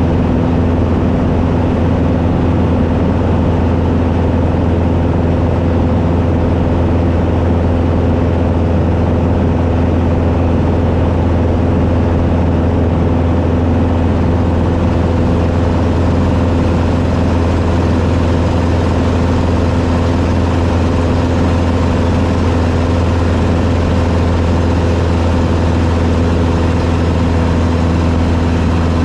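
Taylorcraft BC12D-85's four-cylinder Continental C-85 engine and propeller running steadily at cruise power, heard from inside the cabin, with a low drone that does not change.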